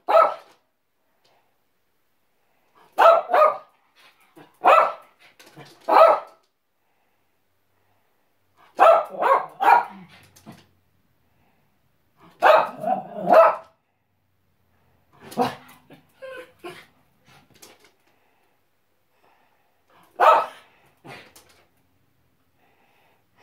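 Small curly-coated dog barking in short bouts of one to four barks, with pauses of a few seconds between bouts.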